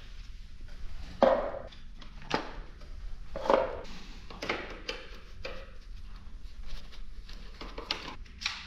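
Irregular clicks and knocks of hand tools and metal parts being handled while the chain guard is taken off a Sur-Ron electric dirt bike, the loudest knocks about a second in and about three and a half seconds in.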